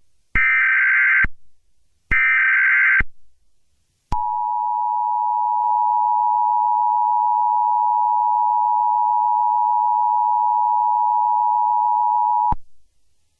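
Emergency Alert System signal: two short, harsh SAME header data bursts, each just under a second long, then the steady two-tone EAS attention signal held for about eight seconds before it cuts off abruptly.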